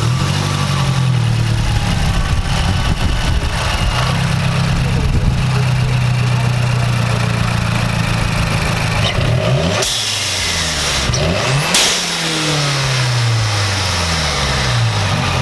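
Mazdaspeed 6's turbocharged 2.3-litre four-cylinder engine held at raised revs, then let off and blipped a few times, with revs falling after each. Its vent-to-atmosphere blow-off valve lets out a sudden loud whoosh twice as the throttle closes.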